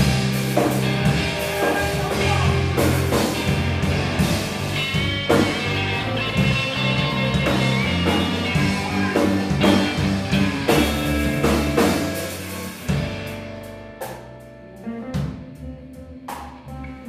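Live blues-rock band playing a slow blues: an electric guitar lead over bass and drums. About thirteen seconds in the band drops to a quiet passage with sparse drum hits.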